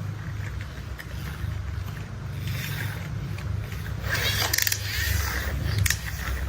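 Plastic toy construction vehicle being handled and rolled: a steady low rumble with scraping, and a few sharp clicks about four to six seconds in.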